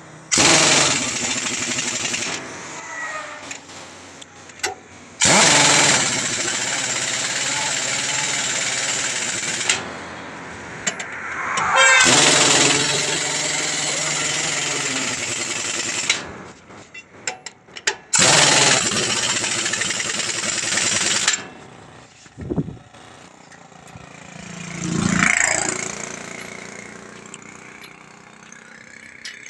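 Pneumatic impact wrench on a truck wheel, run in four long bursts of two to five seconds each with short pauses between.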